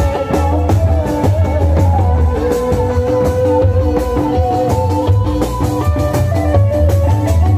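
Loud amplified procession band music from a large portable sound system: a heavy, steady drum-and-bass beat under a held melodic lead line.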